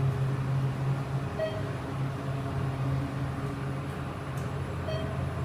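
Thyssenkrupp Endura elevator running with a steady low hum, with two short beeps about three and a half seconds apart.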